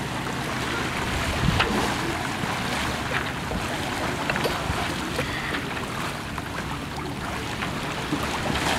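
Sea water sloshing and splashing around surfacing sperm whales, with scattered small splashes and wind on the microphone.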